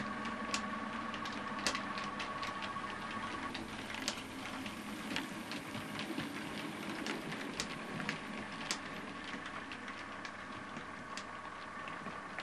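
Bachmann class 350 EMU model train in OO gauge running on the track: a steady motor hum with a faint whine that fades a few seconds in and returns near the end, and sharp irregular clicks from the wheels on the rails.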